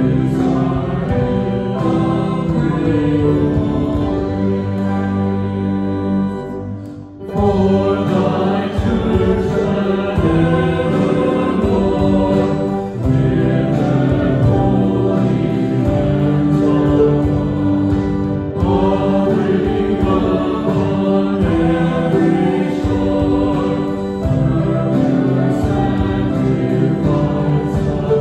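Live worship song: a man singing with acoustic guitar and cello. The music drops away briefly about seven seconds in, then carries on.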